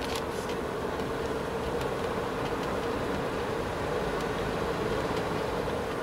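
Car cabin noise while driving at a steady speed: engine and tyre noise with a steady low drone.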